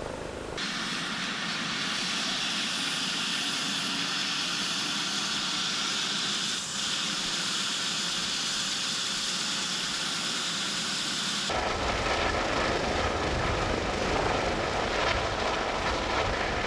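ADAC rescue helicopter's twin turbines giving a steady high whine and hiss with its rotors turning. About eleven seconds in, the sound changes abruptly to a deeper, fuller rotor noise as the helicopter flies overhead.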